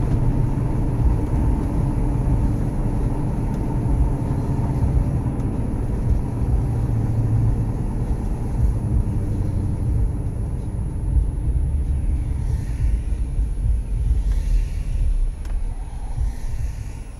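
Car driving, heard from inside the cabin: a steady low rumble of engine and road noise that eases a little near the end as the car slows in traffic.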